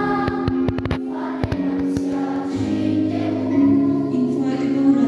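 A congregation of children singing a hymn together in a large church hall, with a quick run of sharp clicks about half a second to a second in.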